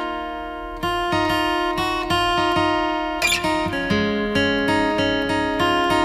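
Acoustic guitar strumming chords in a steady rhythm, with no singing, changing chord about two-thirds of the way through. A brief burst of noise sounds just after halfway.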